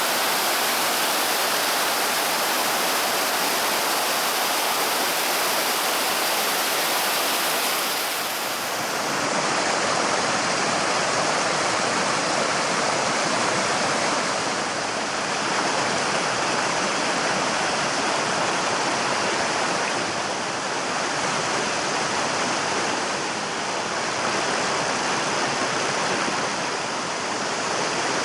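Steady rush of a mountain headwater stream, water pouring over rocks or a small fall, with a slight change in its sound about eight seconds in.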